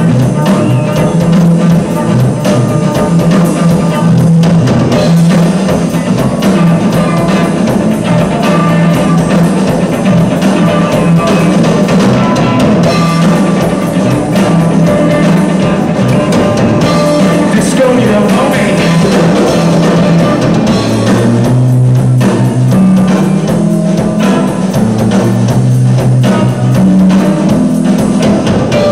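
Rock band playing a song live, Telecaster-style electric guitar strummed over a drum kit. The sound is loud and rough, as on a poor Mini DV camcorder recording. The low notes shift lower about three-quarters of the way through.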